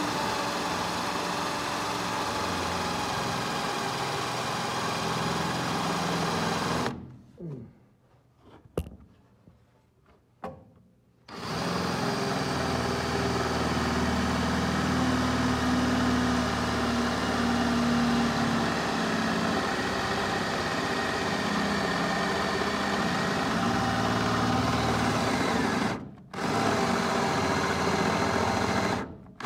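Cordless drill running under load as it bores holes, stopping for about four seconds around a quarter of the way in, with a single click in the gap, and cutting out briefly again near the end. The drill has been acting weird even on a fresh battery, and the owner concludes it is worn out and needs replacing.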